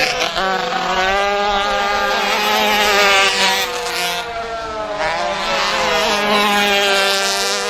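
Several 125 cc two-stroke kart engines running hard at high revs together, their pitch dipping and climbing again as the karts go through the corners.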